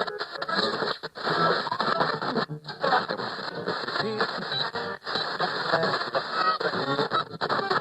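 Radio being tuned across the dial, jumping between short snatches of music and voices with frequent brief dropouts between stations.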